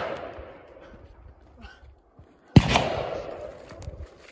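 A hunting rifle shot about two and a half seconds in, its report fading away in a long rolling echo. At the start, the echo of a shot fired just before is still dying away.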